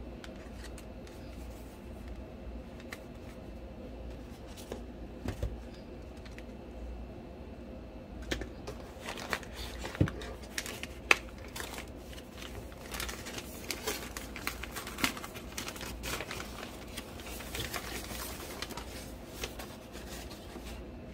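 Plastic packaging crinkling and rustling as a parcel is unpacked by hand, with scattered sharp crackles and snaps that grow dense from about the middle on.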